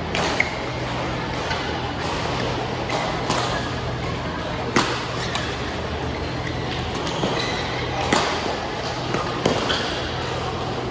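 Badminton rally: sharp racket strikes on the shuttlecock a second or more apart, with brief squeaks of shoes on the court floor, over a steady low hum in a large hall.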